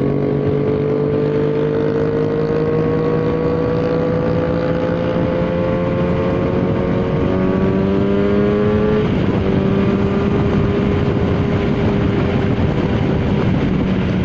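Yamaha XJ6's 600cc inline-four engine running through a Jeskap aftermarket exhaust, heard from the bike at speed. The engine note climbs steadily under acceleration, then about nine seconds in it breaks and settles to an even, slightly lower note.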